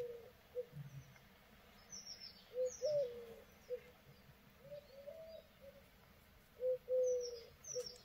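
Birds calling: a low three-note call, short–long–short, repeated about every two seconds, with faint high chirps from another bird between the phrases.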